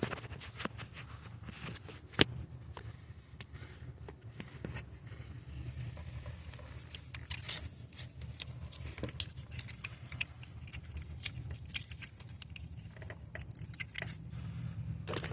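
Hands working on the oxygen sensor's wiring and clips: scattered light clicks and rattles, over a steady low hum.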